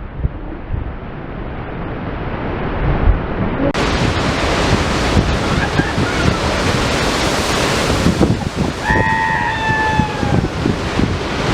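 Large storm waves breaking on a rock jetty, with wind buffeting the microphone. The low rumble of surf gives way about four seconds in to a loud rushing hiss of water that carries on.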